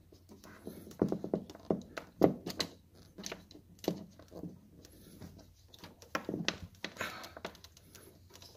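Irregular light clicks and taps of a hand tool working the brass compression nut on a refrigerator ice-maker solenoid water valve's copper supply connection.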